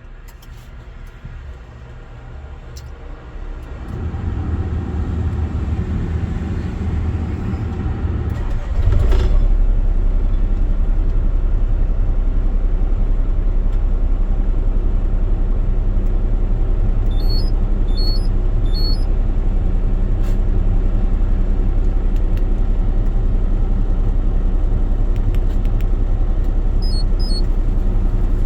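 Hitachi mini excavator's diesel engine being started by remote: it turns over from about four seconds in, catches near nine seconds, and settles into a steady idle. A few short high beeps sound later on.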